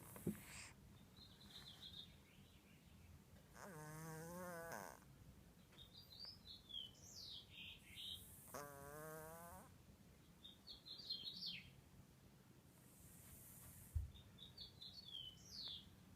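Domestic cat snoring faintly: two buzzing snores about four and a half seconds apart, each with a breathy hiss, then a softer hissing breath. Birds chirp in between, and there are two brief soft knocks.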